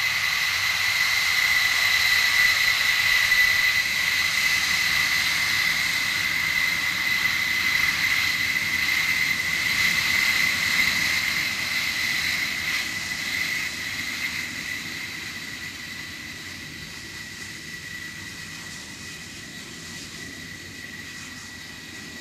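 Grumman F-14 Tomcat's twin jet engines whining steadily at low power as the fighter taxis past, then fading away over the second half.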